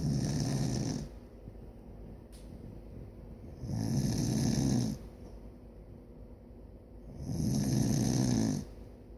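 Snoring: three snores, each about a second long and coming roughly every three and a half seconds, with quieter breathing between them.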